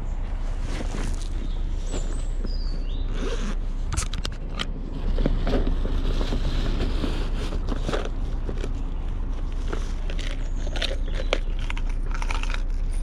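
Irregular clicks, scrapes and crinkling of close handling noise, over a steady low rumble.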